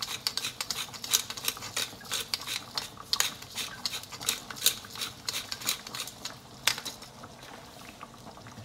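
Wooden pepper mill twisted by hand, grinding black peppercorns in a run of rapid irregular clicks that stops about seven seconds in.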